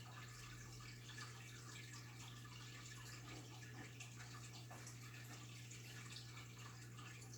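Faint water dripping and small splashes in a home goldfish tank, many tiny irregular ticks over a steady low hum.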